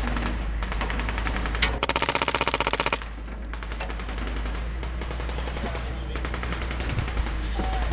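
Airsoft gun firing on full auto: a fast, loud burst about two seconds in that lasts about a second, with quieter rapid fire before and after it. A vehicle engine drones low underneath.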